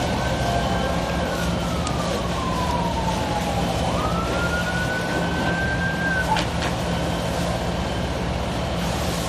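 Emergency vehicle siren wailing: one slow fall in pitch, then a quick rise that is held until about two-thirds of the way through, over a steady low rumble.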